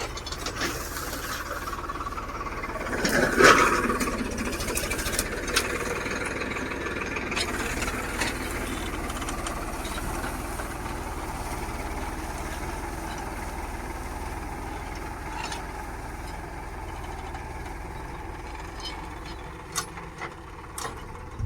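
Farmtrac 6055 tractor's diesel engine running steadily, with a louder swell of noise about three and a half seconds in and a few sharp clicks near the end.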